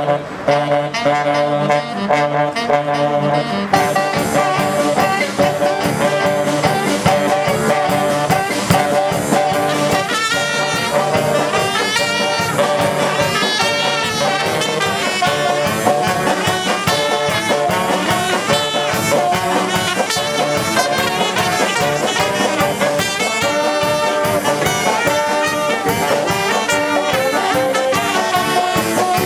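Small brass band of saxophones, trumpets and a tuba playing a jazz tune live, with a drum kit keeping the beat. It opens on held chords and breaks into the full tune with drums about four seconds in.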